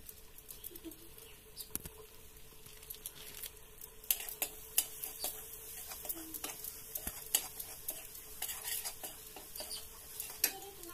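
A metal spatula stirs and scrapes masala in a steel kadai, with repeated sharp clinks of metal on metal over a light sizzle of frying. The clinks come thicker and louder from about four seconds in.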